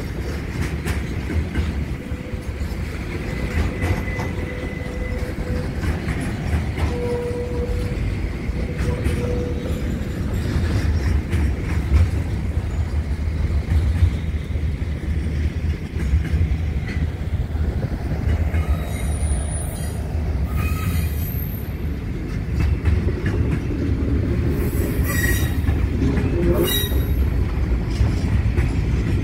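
A freight train rolling past, its wheels rumbling steadily on the rails. Short high-pitched wheel squeals come twice in the second half.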